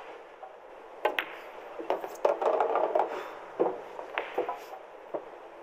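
A shot on a pool table: sharp clicks of the cue tip on the cue ball and of ball striking ball about a second in, then a dense clatter of balls knocking in the middle, and a few more single ball clicks.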